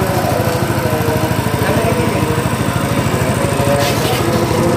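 Small single-cylinder petrol engine on a grass chopper running steadily and loudly, belt-driving the chopper on a test run.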